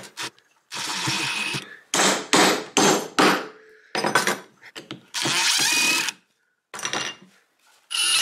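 A string of short, separate bursts of workshop tool noise as a sunken screw is worked out of a small hardwood block, with gaps of quiet between them. Near the end a cordless drill starts driving a drywall screw into a board with a steady whine.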